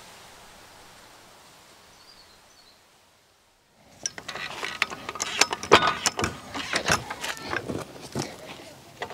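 Hydraulic trolley jack being pumped to lift the front of a car: a run of irregular sharp metallic clicks and clanks that begins about four seconds in, after a faint fading hiss and a moment of silence.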